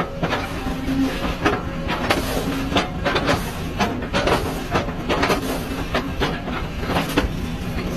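Machinery running with a steady hum and irregular sharp clicking and knocking.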